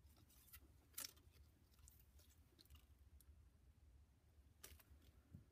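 Near silence, with a few faint clicks from handling a steel feeler gauge's blades.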